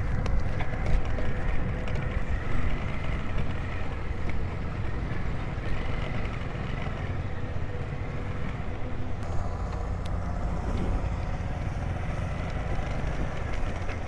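Steady drone of heavy construction machinery: diesel engines of bored-pile drilling rigs and a concrete pump running continuously, with a low rumble underneath.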